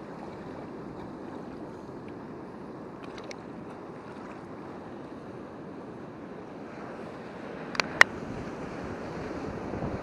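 Sea washing over a rocky shore with wind on the microphone, a steady rushing hiss. Two sharp clicks come close together about eight seconds in.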